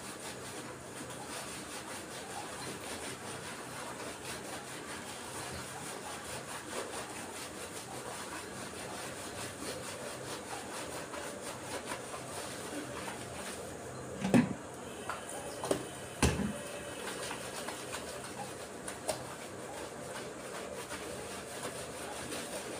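Hands scrubbing and rubbing a wet, shampoo-lathered dog's coat, a steady scratchy rubbing. A few short sharp knocks come about two-thirds of the way through.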